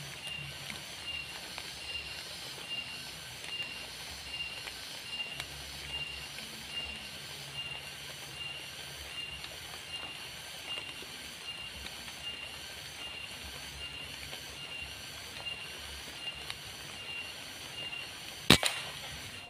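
Night insects chirping in a steady, even rhythm, about one chirp a second. Near the end comes a single sharp rifle shot, by far the loudest sound, with a smaller knock just after it.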